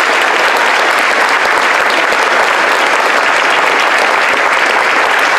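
Audience applause: a room full of people clapping steadily, without a break.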